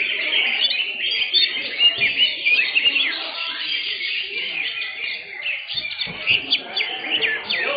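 Greater green leafbirds (cucak hijau) singing in competition: a dense, overlapping stream of quick chirps, whistles and sweeping trills.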